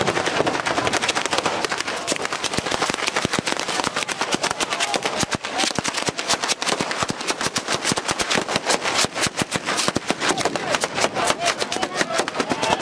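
Street batteria: a long chain of firecrackers laid out along the ground going off one after another in a rapid, unbroken crackle of sharp bangs, many per second.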